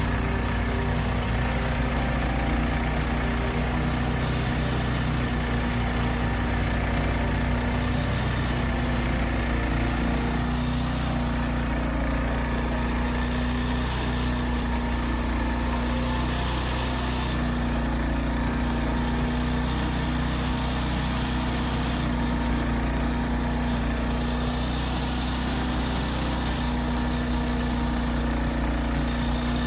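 An engine running steadily at an even speed, a constant drone with no changes in pitch.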